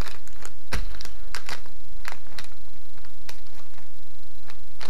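Metallised anti-static bags crinkling and crackling in irregular sharp bursts as they are handled and laid down on a wooden table, with a single heavier thump about a second in.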